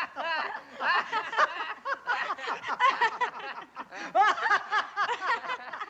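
Several people laughing together heartily, overlapping bursts of laughter in quick succession.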